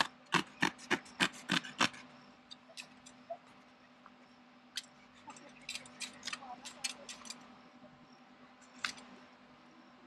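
A knife sawing through the fabric seat of a folding camping stool: a quick run of about eight short cutting strokes over the first two seconds, then a few scattered strokes later on.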